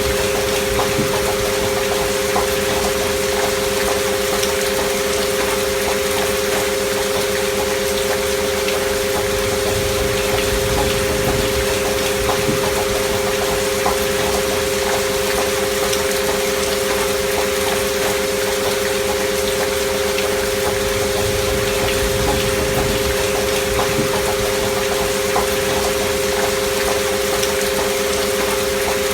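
Two steady pure sine tones held without change over steady rain noise with fine drop ticks, as in a binaural 'healing frequency' track.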